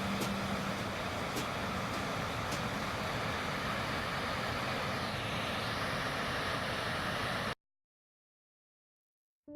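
River Falloch waterfall giving a steady rush of falling water, cutting off suddenly near the end.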